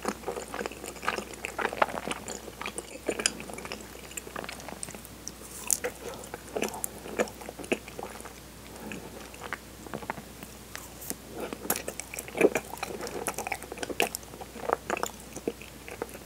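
Bites into a kinako-coated PARM ice cream bar, the thin coating cracking with sharp crackles, and moist chewing in between.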